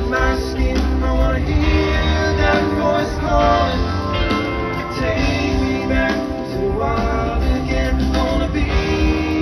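Rock band playing live: electric guitars over bass and drums, a steady stretch of music with no break.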